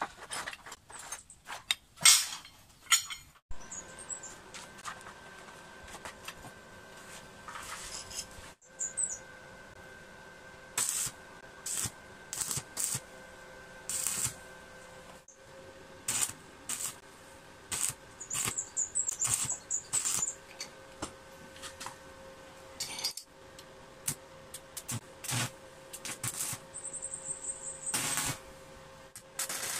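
Scattered short metallic knocks, scrapes and crackles as steel conduit pipe is handled, laid out and tack-welded into a frame, with faint bird chirps here and there.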